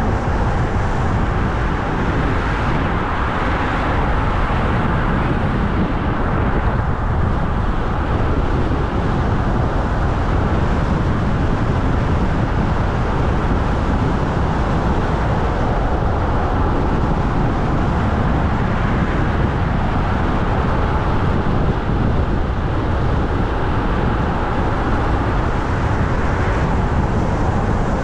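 Car driving at a steady speed on an asphalt road: tyre and engine noise inside the car, an even rumble that holds steady throughout.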